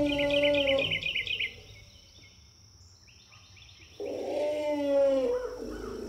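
Asian elephant calls: a long, steady, pitched call ends about a second and a half in, and a second one starts sharply about four seconds in and lasts just over a second. Birds chirp in quick repeated notes behind both calls.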